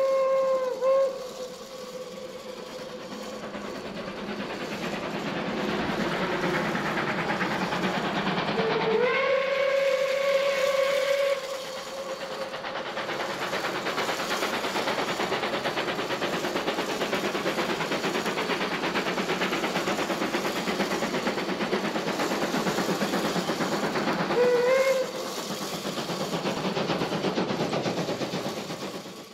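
Recorded steam locomotive sound: a steady running noise with the steam whistle. A whistle ends about a second in, a long whistle of about two and a half seconds comes near the middle, and a short toot comes near the end.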